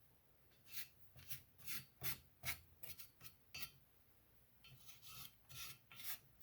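A marking tool drawn across steel as layout lines are marked: a run of short, faint rubbing strokes, a pause a little past halfway, then softer strokes near the end.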